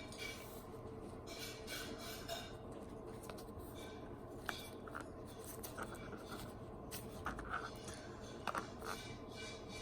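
Small 3D-printed plastic parts of a micro RC crawler being handled and taken apart: scattered light clicks and short scrapes, with a few more together near the end, over a steady low hum.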